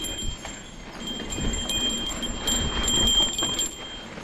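A small bell jingling on and off with the motion of the ride, over the uneven rumble and clatter of travel on a dirt trail.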